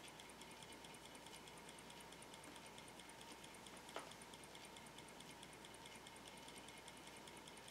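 Faint, fast, even ticking of a small model traction engine's single-cylinder engine running, with one sharp click about four seconds in.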